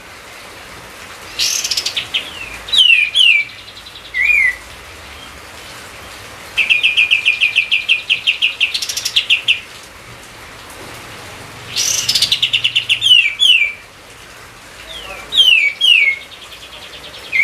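A songbird singing in loud, separate phrases of quick downslurred whistled notes. It also gives a rapid run of repeated notes, about six or seven a second, lasting around three seconds, and the same phrase pattern comes round again near the end.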